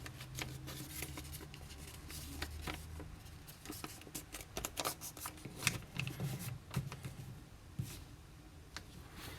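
A sheet of printer paper being folded in half by hand and creased: irregular crisp rustles and crinkles.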